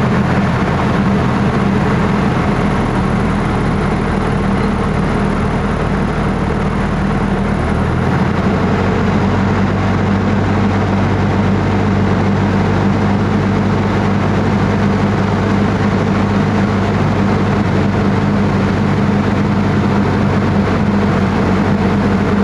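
Small airplane's engine and propeller droning steadily, heard from inside the cabin on the landing approach; the engine's pitch drops slightly about eight seconds in.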